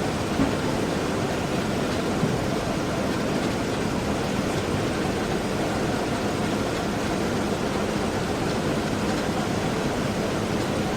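Automatic postal letter-sorting machine running: a steady mechanical rushing noise with a faint low hum, and a couple of light clicks in the first few seconds.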